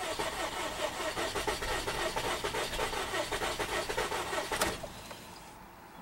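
Starter cranking a 2011 Volkswagen Tiguan's 2.0L TSI (CCT) turbo four-cylinder engine with an even pulsing rhythm. It acts like it wants to start but never catches, and the cranking stops abruptly about four and a half seconds in. The no-start is suspected to come from a slipped timing chain.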